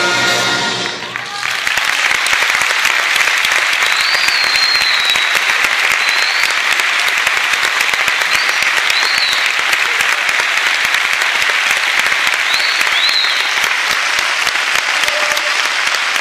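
A concert band's final held chord dies away about a second in, and the audience breaks into steady applause, with a few high whistles scattered through it.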